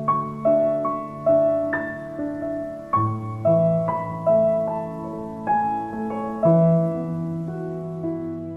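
Slow solo piano music: single melody notes struck every half second to a second over held low bass notes.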